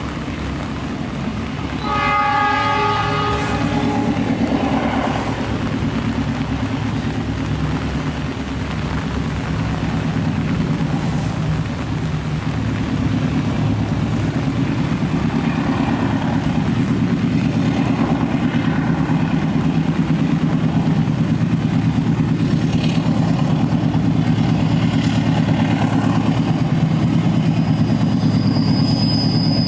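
A train sounds its horn about two seconds in, a single blast of about a second and a half. Then the train passes over the bridge with a steady low rumble of wheels and carriages.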